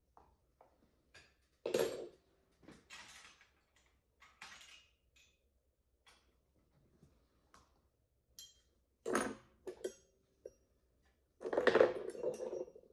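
Metal dental hand instruments clinking and knocking as they are handled and put down: scattered small clicks, a sharp clink about two seconds in, another about nine seconds in, and a longer clatter of several knocks near the end, the loudest.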